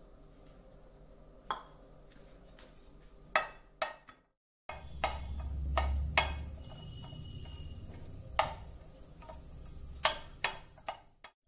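Wooden spatula knocking and scraping against a nonstick frying pan as cashew halves are stirred in ghee: a dozen or so separate clicks and taps, spread out. After a short break about four seconds in, a low rumble runs underneath.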